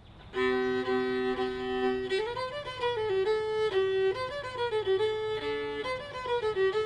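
Fiddle music: the fiddle holds two notes together for about two seconds, then plays a quick-moving tune.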